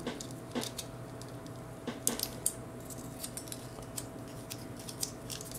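Light, scattered clicks and taps of small hard plastic parts being handled and pegged together: an armor piece being plugged onto a plastic action figure. A few clicks stand out about half a second and two seconds in.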